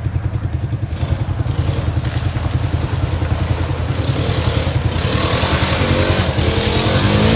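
Side-by-side UTV engine running hard under load, trying to climb out of a muddy hole. It has a rhythmic pulsing note and grows gradually louder as the revs build.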